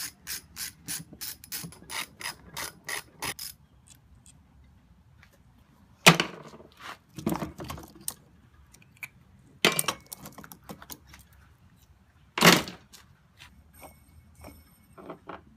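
A ratchet clicking in even strokes, about four clicks a second for the first three and a half seconds. Four loud knocks follow, spread over the rest.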